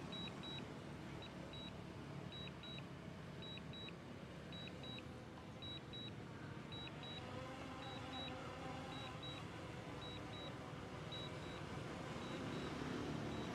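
DJI remote controller beeping twice about once a second while the DJI Air 2S returns to home, over the faint, wavering hum of the drone's propellers as it descends overhead, growing slightly louder near the end.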